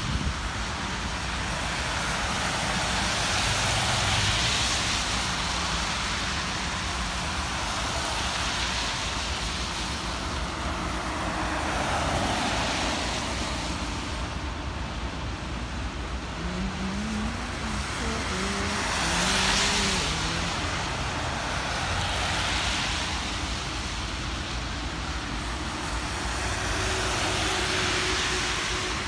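Road vehicles hissing past one after another on wet pavement, each a long swell of tyre spray, over the steady rumble of a freight train's empty tank cars rolling by.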